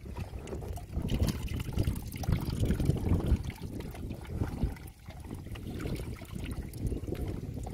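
River water splashing and trickling as a man climbs into a wooden boat and hauls a bamboo shrimp trap out of the water, with water draining through the trap's slats. The splashing is busiest in the first few seconds.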